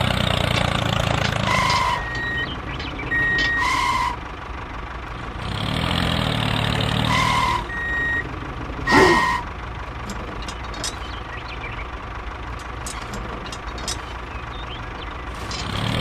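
A construction vehicle's reversing alarm sounds four short beeps over an engine running at idle, which fades in and out. About nine seconds in there is a quick rising squeal, and scattered light clicks follow in the second half.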